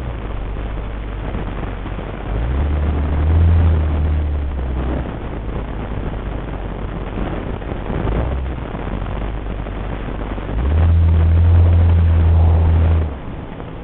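Road and engine noise of a Nissan Elgrand, heard from inside the cabin while driving. A low droning boom swells up twice, each time for about two or three seconds.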